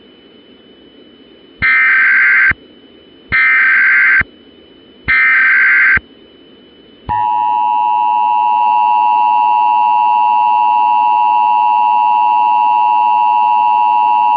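Three short bursts of Emergency Alert System SAME header data, each about a second long, warbling and screechy, over a faint hiss. About seven seconds in, the EAS attention signal begins: a loud, steady two-tone alarm that holds unbroken.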